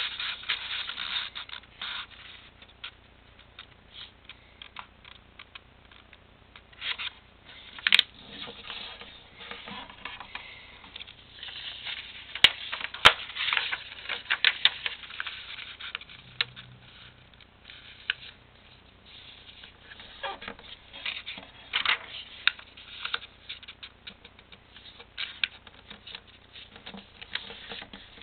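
A sheet of paper being folded by hand: irregular rustling and crinkling as it is handled, with scraping strokes as fingers run along the creases, and a couple of sharp taps.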